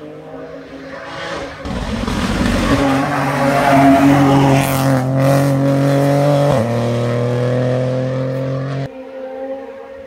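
Rally car passing at full throttle. The engine note builds as it approaches and holds loud and high, with one sudden step down in pitch, like a gear change, about two-thirds of the way through. It cuts away suddenly near the end, leaving a fainter engine in the distance.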